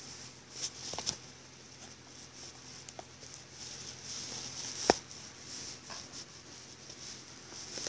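A few light clicks and taps scattered over faint room hiss, the sharpest about five seconds in.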